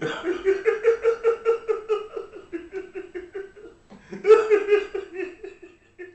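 A man laughing hard in a high 'hee hee hee', about five quick pulses a second: one long run, a short catch of breath about four seconds in, then a louder second run that trails off at the end.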